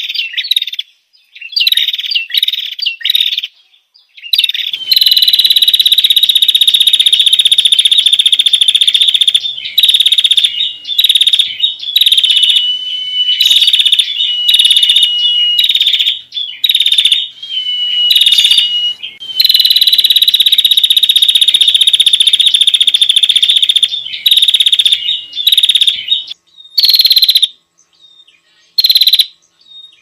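Bird-lure recording of a prenjak lumut. The small songbird gives loud, rapid, buzzing trills, two of them held for about five seconds each, with shorter chirped phrases and brief pauses in between.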